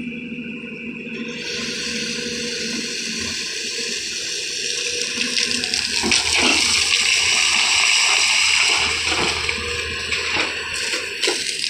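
Rushing, gushing water that swells to its loudest around the middle, over a steady low hum.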